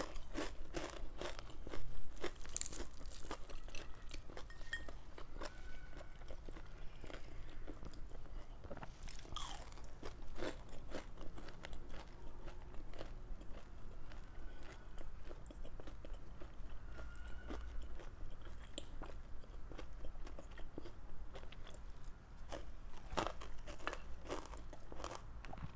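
Close-up chewing and crunching of crispy fried galunggong (round scad), a string of irregular crisp crunches with a few louder bites.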